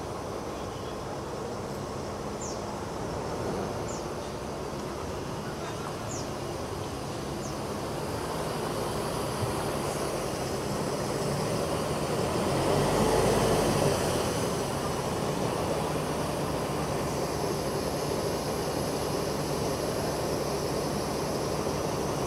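A Mercedes-Benz diesel coach bus running as it moves slowly forward. The engine grows louder as the bus comes close, peaking about halfway through, then holds steady.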